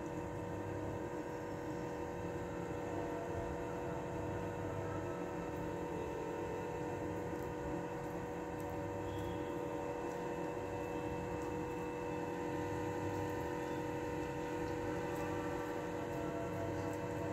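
A steady hum made of several held tones, unchanging throughout.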